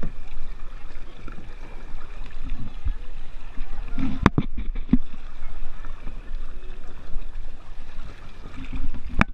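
Shallow river rapid rushing and gurgling over rocks close by, with two sharp knocks, one about four seconds in and one near the end.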